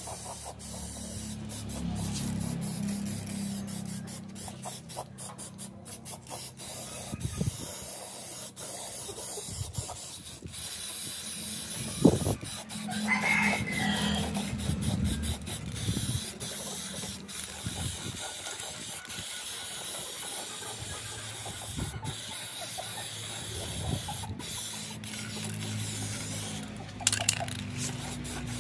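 Aerosol can of black spray paint hissing in repeated bursts with short breaks between them. A single sharp knock about twelve seconds in is the loudest moment.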